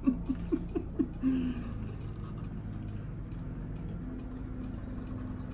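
A few short chuckles of a woman's laughter, then a wall clock ticking regularly over a steady low hum.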